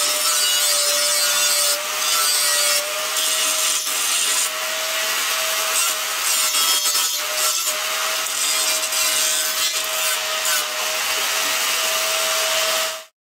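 Angle grinder dressing the jagged, slag-covered edges of plasma-cut 1/8-inch steel plate: a steady motor whine over the harsh rasp of the disc on steel, cutting off suddenly just before the end.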